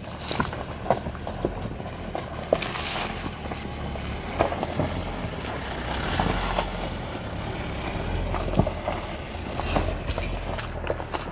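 Jeep Wrangler Unlimited crawling slowly over a rocky dirt trail: its engine runs low and steady while the 33-inch tires crunch over gravel, with scattered sharp pops and clicks of stones under the tread.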